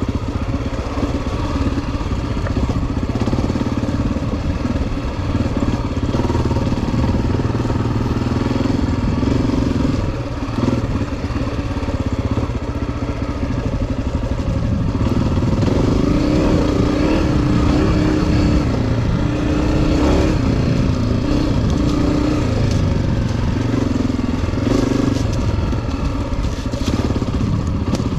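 Honda CRF250F dirt bike's single-cylinder four-stroke engine running under way, its pitch stepping up and down with throttle and gear changes.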